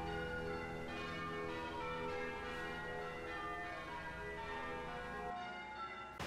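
Bells ringing, a run of overlapping ringing notes one after another, fading away about five seconds in.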